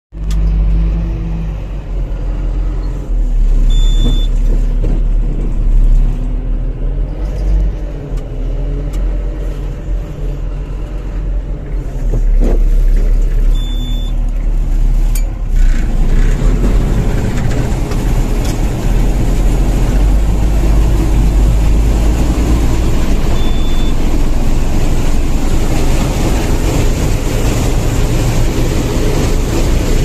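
Combine harvester with a corn header running, heard from inside its cab: a loud, steady low engine and machinery drone. About halfway through it grows louder and harsher.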